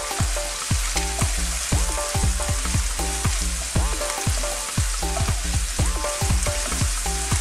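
Prawns, mushrooms and baby corn sizzling in hot oil in a deep pan while a wooden spoon stirs them, scraping and knocking against the pan about two to three times a second.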